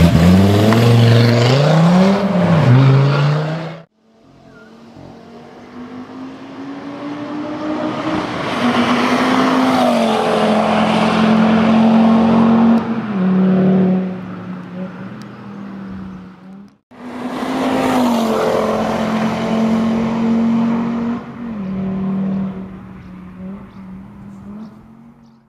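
Audi TT RS's turbocharged five-cylinder engine through a Milltek Sport 3-inch racing exhaust. It is first revved up and down in quick blips, then heard at full throttle on the circuit, getting louder as the car approaches, with upshifts dropping the pitch in steps, and fading away. A second, similar run follows after a sudden cut.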